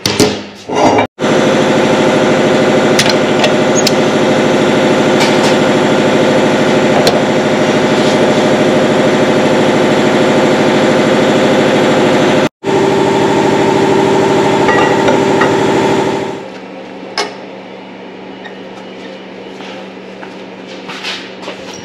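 Shop machine cutting steel pipe stock: a loud, steady mechanical din that drops to a quieter motor hum about three-quarters of the way through, with a single click shortly after.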